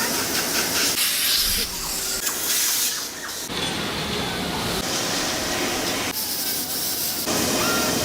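A hissing noise in several short segments that change abruptly about a second in, midway, and near the end.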